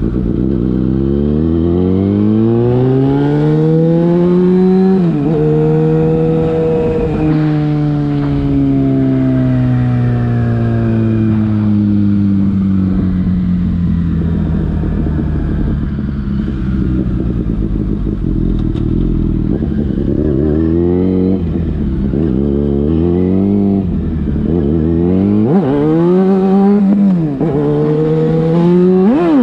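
Yamaha FZ6's inline-four engine through a LeoVince aftermarket exhaust, ridden. It revs up through a gear and shifts about five seconds in, then winds down slowly for about ten seconds as it slows. Near the end come several short bursts of acceleration, each cut by a quick drop in revs.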